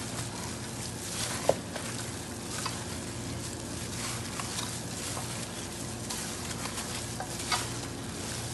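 Raw chicken wings being mixed by a gloved hand with vinegar, salt and black pepper in a steel bowl: soft, wet shifting of the meat with a few sharper clicks, over a steady low hum.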